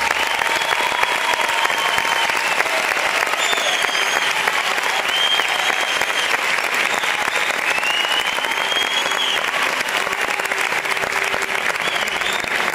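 Audience applauding steadily right after the music stops, with a few brief high-pitched calls over the clapping.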